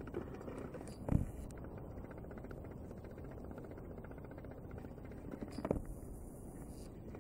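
Faint, steady low outdoor background noise, with two brief thumps, one about a second in and another a little before the end.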